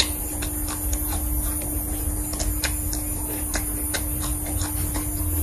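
Close-miked eating: chewing and crunching with irregular crisp mouth clicks while a fresh red chili pepper is bitten, over a steady hum.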